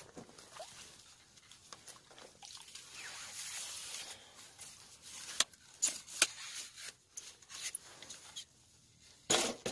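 Faint rustling and a few sharp clicks as a fishing rod is handled and lifted, with a brief louder noise near the end.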